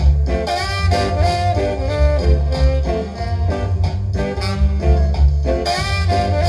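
Music played from a record by a DJ: a song with a heavy bass line and a steady beat under melody lines, playing without a break.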